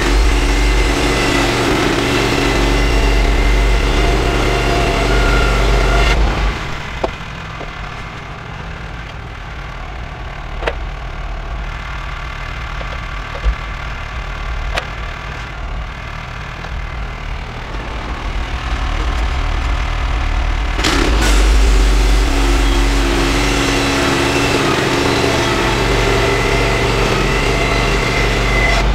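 Band sawmill's gas engine running at full throttle while the blade cuts through a fir cant. About six seconds in it drops to a quiet idle, with a few sharp knocks as the sawn boards are handled. About 21 seconds in it throttles back up for the next cut.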